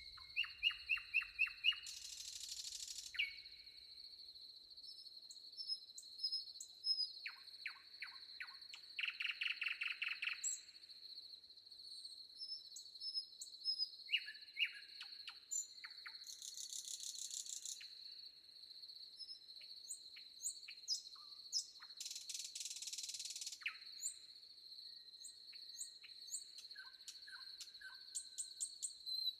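Several wild birds calling and singing: short chirps, rapid trilled runs of notes and whistled notes, over a continuous high-pitched insect drone. A few harsh buzzing bursts come in now and then.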